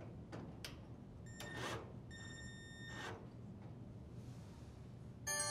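Cordless drill driver running faintly in two short low-speed spurts, about one and a half and three seconds in, loosening the top screws on the dryer door hinges, with a few faint clicks before them. A chime starts at the very end.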